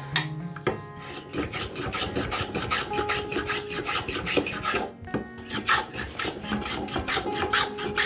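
Hand rasp scraping back and forth across a zebrawood blank, shaping it into a plane knob, in quick even strokes at about three a second, with a brief pause midway.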